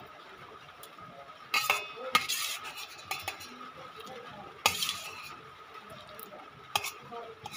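Cutlery clinking and scraping on a plate during a meal, four or five sharp clinks, with quieter rustle and chewing in between, over a faint steady high tone.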